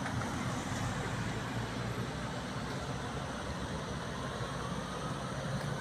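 Steady motor-vehicle engine and street traffic noise, with a faint rising whine in the second half.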